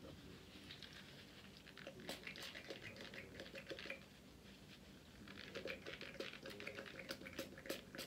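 Faint crackly rustling with many light clicks, in two spells: a tissue wiping a metal spoon clean with rubbing alcohol.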